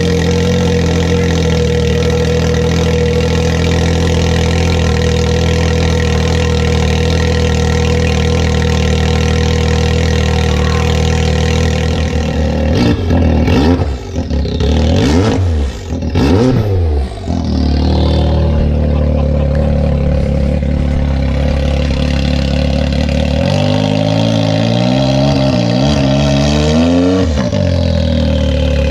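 Can-Am Maverick X3 Turbo's turbocharged three-cylinder engine running through a straight-pipe exhaust, idling steadily just after start-up. About halfway through it is revved up and down in several throttle blips, then settles back to idle, with a few lighter blips near the end.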